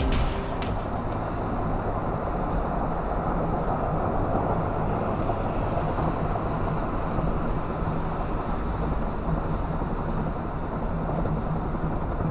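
Steady road noise of a car driving on a freeway, tyre and wind rush with the engine's low, even hum underneath.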